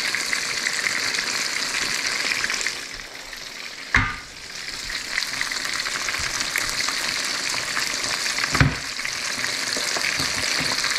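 Battered striped bass pieces shallow-frying in hot oil in a frying pan: a steady crackling sizzle. It dips briefly a little after three seconds in, and two short knocks sound at about four and eight and a half seconds in.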